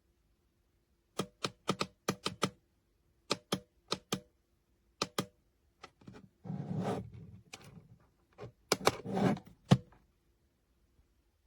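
Plastic buttons on a digital alarm clock being pressed: quick runs of sharp clicks, several in a row, then shorter pairs. There are two short spells of rustling handling noise, about six and nine seconds in.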